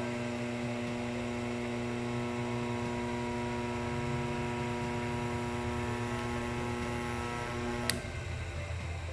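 Electric motor of a Northfield 25-inch No. 7 planer running with a steady electrical hum, switched off with a click about eight seconds in, leaving a lower hum as it winds down.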